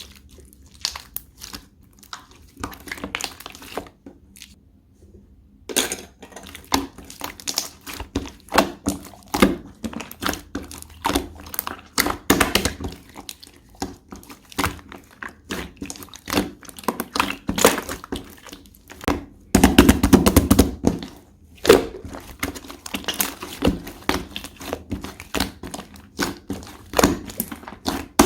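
Slime being squeezed, stretched and pressed by hand: many small sticky clicks and crackles, with a brief lull about four seconds in and a louder, denser run of squishing about twenty seconds in.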